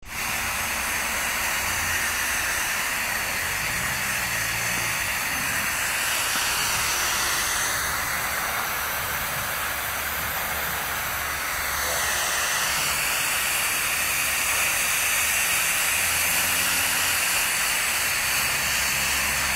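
Steady hiss of a hose spray nozzle sending a fine mist of water over plant trays. Its tone shifts for a few seconds in the middle.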